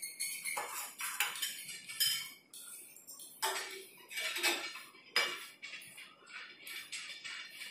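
Steel kitchenware and dishes clinking and clattering as they are handled, in irregular sharp knocks.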